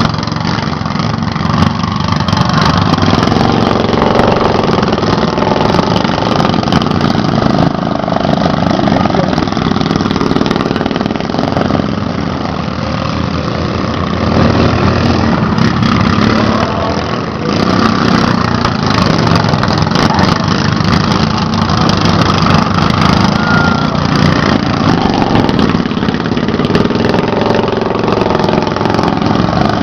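Stock-class racing riding lawn mowers' small engines running hard, with the overall sound swelling and easing a little as the machines move around the track.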